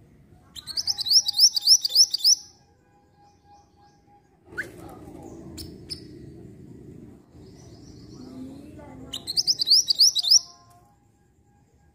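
Minivet singing two bursts of quick, sharp, high whistled notes, about six a second, the first just after the start and the second about nine seconds in. Between the bursts there is a low rumbling background noise with a few clicks.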